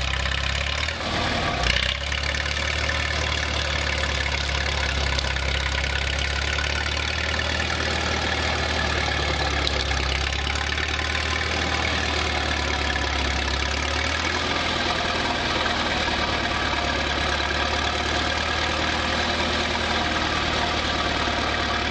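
Tractor engine running steadily at a low, even idle-like pace.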